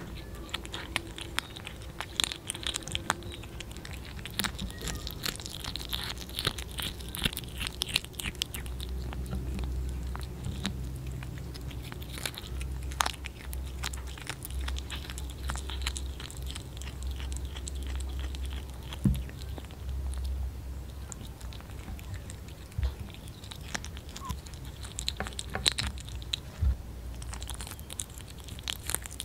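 A kitten chewing small raw whole fish: steady, irregular crunchy bites and wet chewing clicks as the fish's bones and flesh break up.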